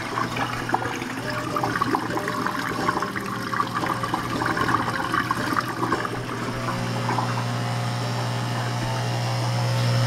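Dishwasher drain pump running with a steady hum while drain water gurgles and splashes through the sink's air gap; the splashing dies away about six or seven seconds in, leaving the pump hum, which grows louder near the end.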